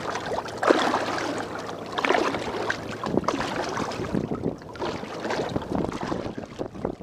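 Water lapping and splashing against a small one-man pontoon boat in irregular bursts, with wind gusting on the microphone.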